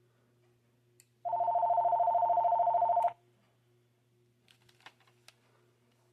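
VTech CS5249 DECT 6.0 phone's electronic ringer sounding one warbling two-tone ring of about two seconds, with a click just before it. A few faint clicks follow, over a faint steady hum.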